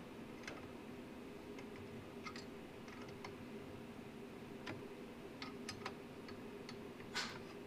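Small metal tool clicking and scraping against screws and hardware inside an opened battery charger. The light ticks come irregularly, with one louder click near the end, over a faint steady hum.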